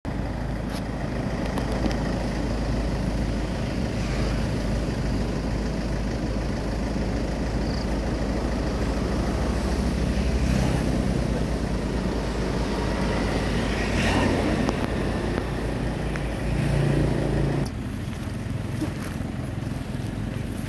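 Low, steady rumble of motorbike engines on a road, with faint engine tones; about 17 seconds in, the sound drops abruptly to a quieter background.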